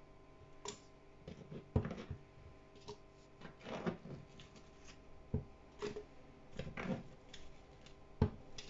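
Chunks of chopped onion, tomato and red pepper picked off a plastic cutting board and dropped into a Kenwood blender's plastic jug: a string of irregular light knocks and rustles, the sharpest a little under two seconds in and again near the end.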